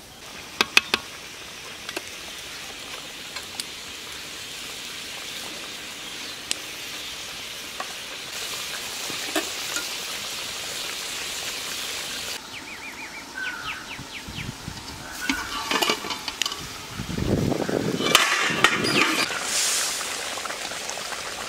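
Pointed-gourd curry in coconut milk simmering and sizzling in a metal karahi: a steady hiss with occasional sharp clicks. In the last few seconds a steel spatula stirs and scrapes against the pan, the loudest part.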